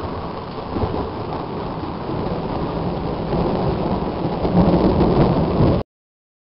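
Thunder rumbling over steady rain just after a lightning strike. The rumble swells louder near the end, then the sound cuts off abruptly.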